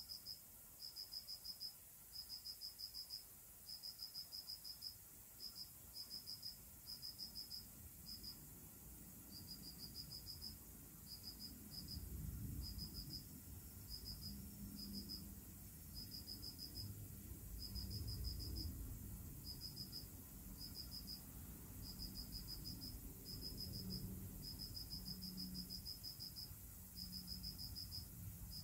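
An insect chirping in short, rapid pulse trains about once a second, with a low rumble swelling in and out through the middle.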